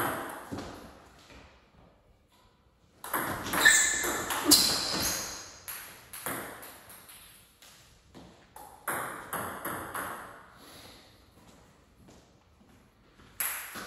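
Table tennis rally: the celluloid-type ball clicks off the rubber-covered paddles and bounces on the table in quick runs of hits, with short pauses between points.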